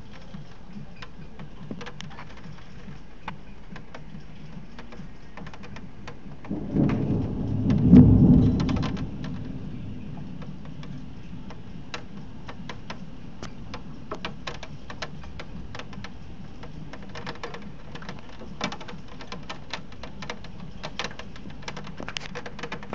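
Thunderstorm: steady rain with many sharp drops tapping close by, and a clap of thunder that rumbles up about six and a half seconds in, peaks a second and a half later and dies away within about three seconds.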